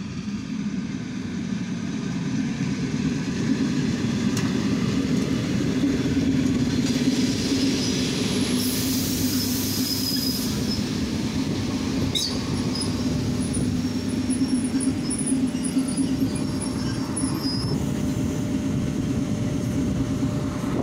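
Soviet-built ER9M electric multiple unit running past along a platform, with a steady low hum and rumble from the cars that grows louder after the first couple of seconds. High metallic squeals from the wheels on the rails come in about eight seconds in and again from about twelve to eighteen seconds.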